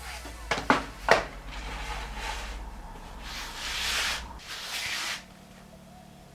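Wooden pieces being handled: a few sharp knocks about a second in, then two longer stretches of rubbing or scraping.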